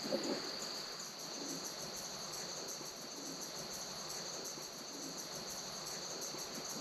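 Night insect chorus: crickets trilling steadily, one continuous high trill with faster pulsed chirping above it, and a few faint rustles near the start.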